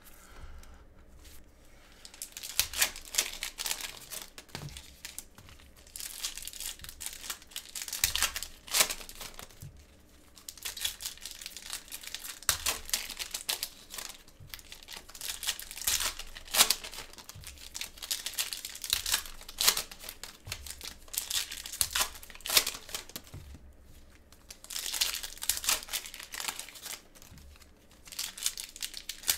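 Plastic cello wrappers of Mosaic basketball card packs being torn open and crinkled, in repeated irregular bursts with short quieter pauses between packs.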